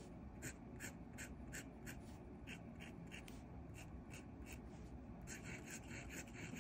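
Extra-fine steel fountain pen nib scratching on paper in short, quick strokes, about three a second, turning into a more continuous scratch in the last second or so as the strokes become loops. It is a writing test of ink flow, and the nib writes without dryness or skipping.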